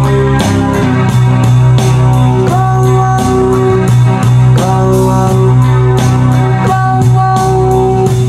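Roland VA-7 arranger keyboard playing music: a steady drum beat, about two hits a second, over a held low bass note and sustained chords.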